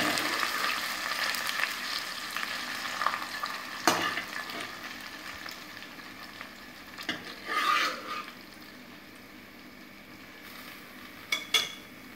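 Cooked broken wheat sizzling in hot ghee in a stainless steel kadai, the sizzle fading steadily as the wet grains settle into the fat. A few knocks and a short scrape from stirring break in about 4, 7 and 11 seconds in.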